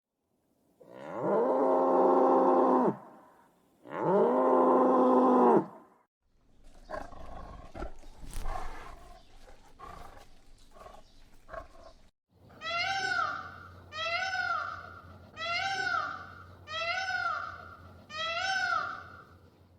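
Animal calls from several spliced clips: two long, drawn-out calls, then a stretch of scattered softer noises, then five short repeated high calls about a second and a half apart.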